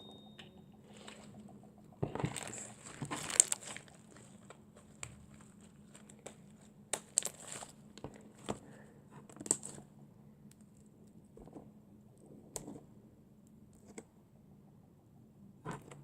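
Slime being handled and squeezed by hand, with irregular crackles and small sharp clicking pops from air pockets in the slime. The sounds are densest about two to three and a half seconds in, then come as separate clicks every second or two.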